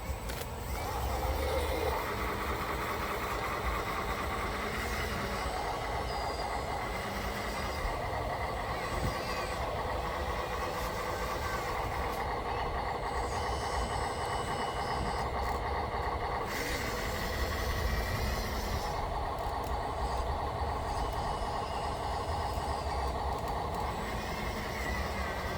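Radio-controlled construction machines running: a steady whine of small electric motors and gearing that shifts in strength every few seconds as the machines work.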